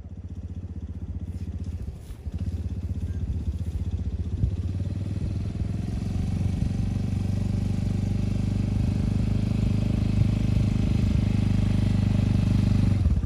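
Quad bike (ATV) engine running as the quad drives slowly toward the listener, growing louder as it comes closer, with a brief easing about two seconds in.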